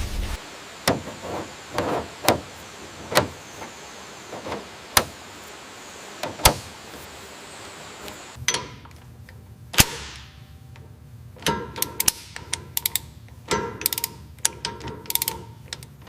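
Irregular sharp mechanical clicks and knocks, spaced out at first, then coming in quick clusters with a faint ringing tone from about halfway.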